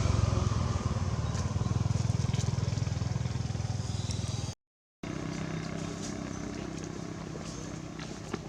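A motor engine running steadily with a low hum. It cuts out abruptly for about half a second just past halfway, then carries on a little quieter.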